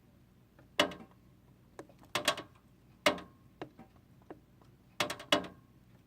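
Fedders air conditioner's fan coasting down after being unplugged, giving sharp, irregular clicks and knocks as it slows. The owner calls it all loose.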